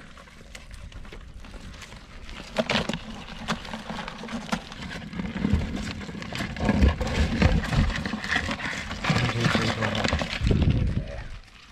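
Irregular knocks, clicks and rattles from handling a baited crab pot and the hardback crabs caught in it.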